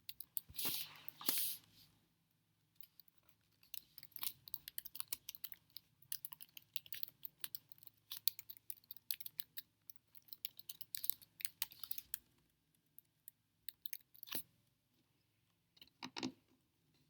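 Chewing close to the microphone: several seconds of rapid small crunches and clicks, with a few breathy puffs near the start and two short noisy bursts near the end.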